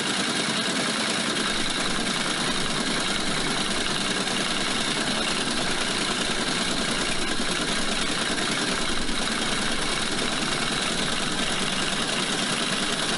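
An engine running steadily at a constant speed, an even drone with no changes.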